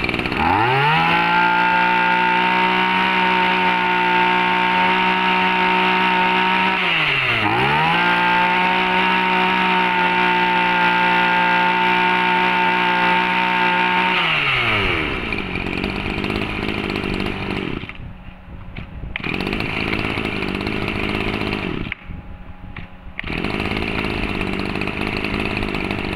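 Maruyama MBS 2300 brushcutter's 23cc two-stroke engine revved to full throttle about half a second in and held steady, eased off and revved back up once about seven seconds in, then dropping back to a rougher idle around fourteen seconds in that dips twice.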